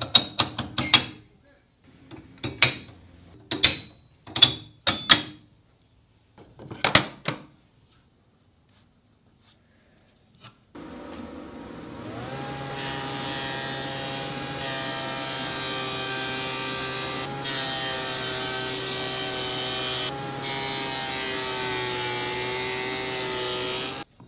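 A handful of short scraping strokes, then a pause. About ten seconds in, a table saw motor starts with a steady hum, and a couple of seconds later its spinning blade cuts through a plywood panel with a loud hiss, until the sound cuts off suddenly near the end.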